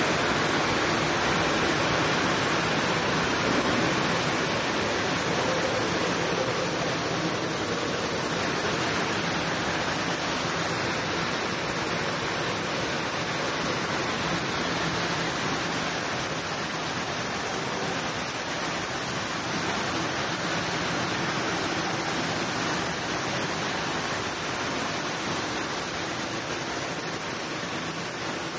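Yarn doubling (twisting) machine running, its rows of spindles and rollers making a steady, even rushing noise.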